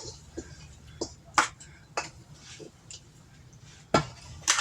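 Kitchenware being handled: a few sharp, separate knocks and clinks, the loudest about four seconds in, over a low steady hum.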